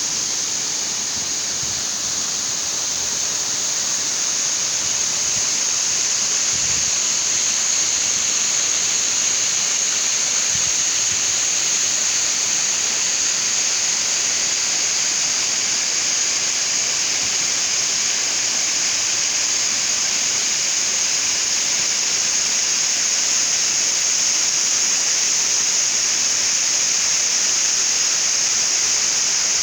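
Waterfall: a steady, unbroken rush of falling water, mostly high-pitched, that holds the same level throughout.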